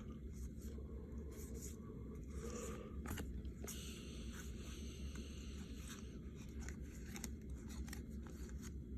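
Baseball cards being handled and flipped through by hand: faint sliding and soft clicks of card stock over a steady low hum.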